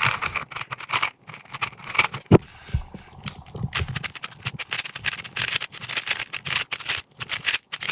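3x3 Rubik's cube being turned fast during a speedsolve, its plastic layers clicking and clacking in quick irregular runs, with an occasional louder knock.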